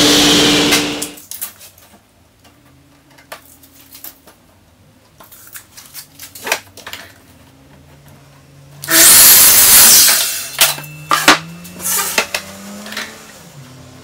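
A table saw running, which shuts off and winds down about a second in. A few seconds of light knocks and clicks follow. About nine seconds in, a Makita mitre saw makes one short, loud cut through a board, followed by a few knocks.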